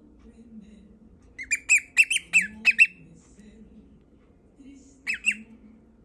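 A cockatiel singing: a quick run of about seven sharp, shrill notes, each falling in pitch, and then two more a couple of seconds later.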